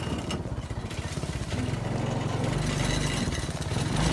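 Yerf Dog go-kart's small gasoline engine running steadily with a low, pulsing note.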